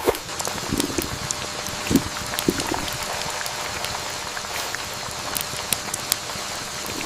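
Steady watery hiss with many small drips and pops scattered through it, and a few soft low knocks near the start.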